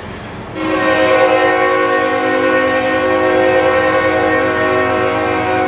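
Diesel locomotive air horn sounding one long steady multi-note chord, starting about half a second in, over a low engine rumble: the warning for a grade crossing.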